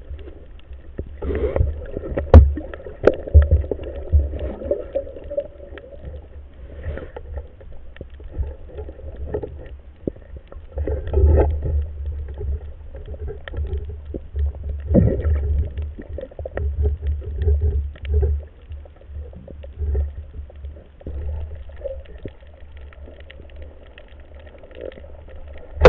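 Underwater sound picked up through a camera housing during a free dive: a low rumble with uneven thumps from water moving against the housing and the diver's movements, with many faint scattered clicks.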